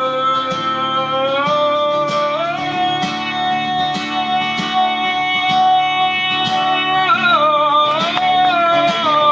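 Acoustic guitar strumming under a long, held sung note that steps up in pitch twice early on and wavers near the end: the closing refrain of a country-folk song.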